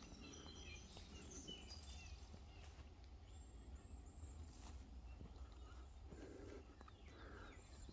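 Near silence outdoors: faint small-bird chirps and calls, a few in the first two seconds and a short repeated call around the middle, over a steady low rumble.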